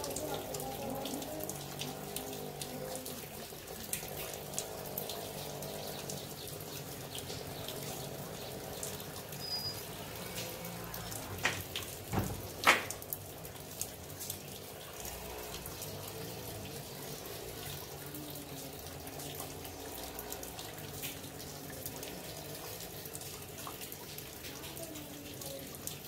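Rainwater pouring steadily off a terrace and splashing onto the ground during light rainfall. A few sharp clicks come near the middle.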